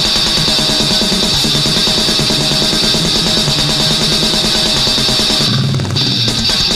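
Heavy metal band recording: fast, dense drumming with constant cymbals under heavily distorted guitar. Near the end the drums and cymbals drop out for about half a second, leaving a low held note, then the full band crashes back in.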